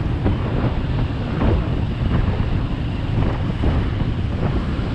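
Wind buffeting the camera microphone on a moving motorcycle: a steady low rumble, with the ride's engine and road noise underneath.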